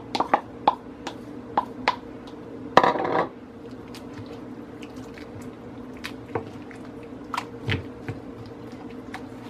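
Wooden spoon tapping and scraping against a ceramic bowl as diced cucumber is scraped in, then stirring through a thick, wet tomato sauce. A louder clatter about three seconds in, as the emptied bowl is set down on the counter. A steady low hum sits underneath.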